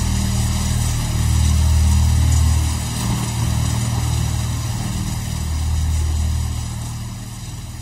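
A low, steady engine idling, its rumble swelling twice.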